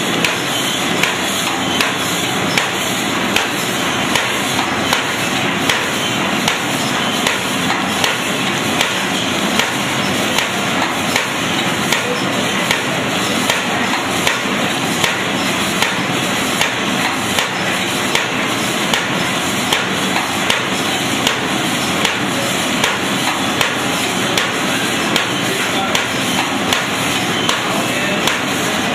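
Paper bag making machine running: a steady mechanical clatter with a sharp knock repeating about once a second.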